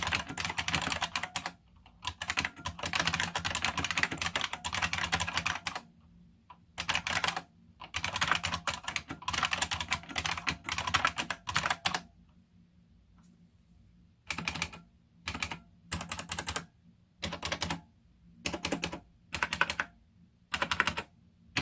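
Typing on a Unicomp Ultra Classic buckling-spring keyboard: fast runs of clacking keystrokes broken by short pauses, then, from about halfway, a quieter gap followed by short separate bursts of keys less than a second apart.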